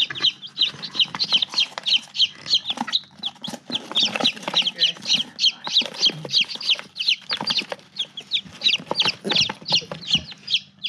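Five-day-old chicks peeping, rapid short high peeps, several a second, with the cardboard box they are crowded into rustling and knocking as it is handled.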